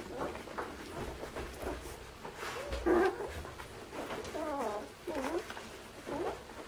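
Nine-day-old Irish Setter puppies squeaking and whimpering while they nurse: several short, wavering cries, the loudest about three seconds in.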